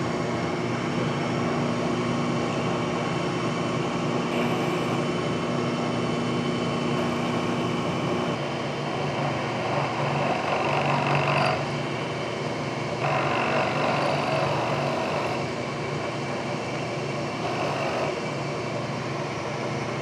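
Vertical milling machine spindle running steadily while a drill bit cuts down into a round metal part. Stretches of louder cutting noise come in the second half.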